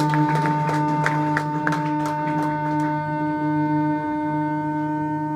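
Free jazz trio of reeds, double bass and drums playing live: steady held drone tones under light percussive strikes, which stop about three seconds in, leaving only the held tones.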